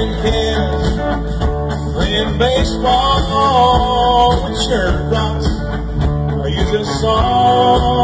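Live country-rock band playing a song, with guitars, bass and drums under a lead vocal.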